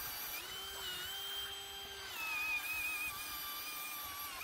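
Ryobi 18V brushless drill in drill mode boring with a 5/8-inch spade bit: a steady motor whine whose pitch rises slightly near the start and sags a little about two seconds in as the bit loads up.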